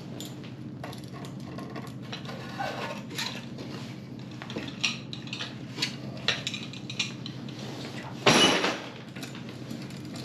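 Metal clinking and scraping as a rusted, seized baffle is worked out of a motorcycle exhaust pipe, with a louder scrape about eight seconds in.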